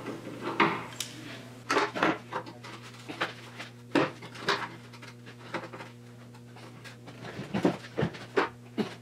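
A man grunting and breathing hard with effort while forcing a bent steel chassis-frame mount bracket, which is not giving easily. Scattered short metallic knocks and scrapes come through, over a steady low hum.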